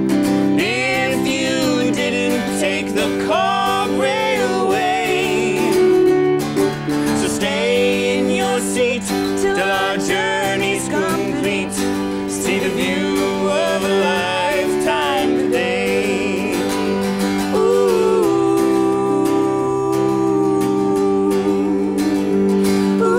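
A man and a woman singing a song together, accompanied by a strummed acoustic guitar and a keyboard. Near the end they hold a long note over a sustained chord.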